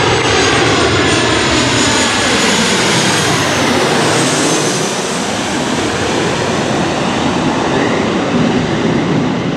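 Boeing 737's CFM56 jet engines roaring as the airliner passes low overhead on final approach, their whine sliding down in pitch as it goes by about four seconds in.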